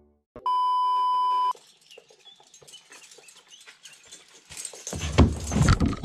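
A steady electronic beep lasting about a second, then faint bird chirps. From about five seconds in come loud rumbling, knocks and scrapes as the camera is picked up and handled.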